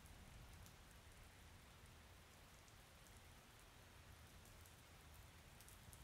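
Faint, steady rain ambience: a soft, even hiss of falling rain at a very low level.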